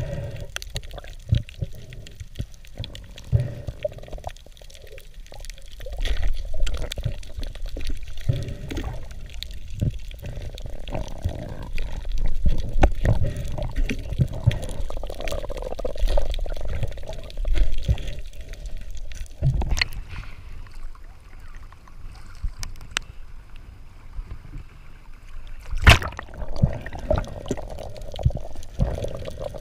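Underwater sound through a waterproofed action camera: muffled water movement and a low rumble that swells and fades, with scattered sharp clicks and one loud click near the end.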